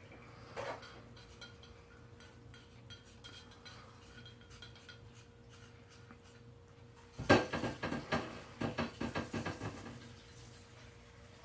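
Cat eating, with faint clicks and taps at the dish. About seven seconds in comes a sudden loud burst, then a quick run of bursts for a couple of seconds: a sneezing and coughing fit while eating. The cause was a hole in the back of the soft palate, open through to the sinus cavity, that let food into the nose.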